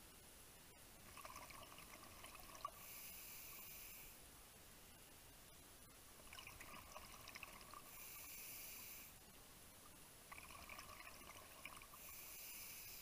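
Scuba breathing heard underwater through a regulator: a hiss on each inhale alternating with a rush of exhaled bubbles, three slow, even breaths, faint. One sharp click about two and a half seconds in.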